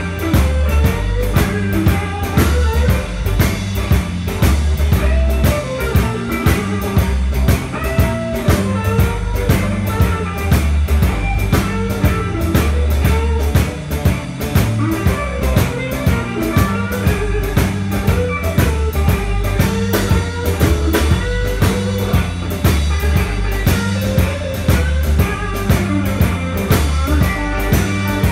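Live electric blues-rock band playing without vocals: electric guitar lines over electric bass and a drum kit keeping a steady beat.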